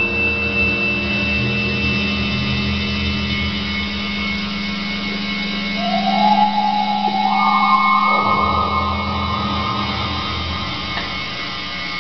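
Eurorack modular synthesizer drone: a steady low tone and a thin high whine held throughout, over a low rumble. A band of hissing noise comes in about six seconds in, steps up in pitch a second later, and its lower part drops away about eight seconds in.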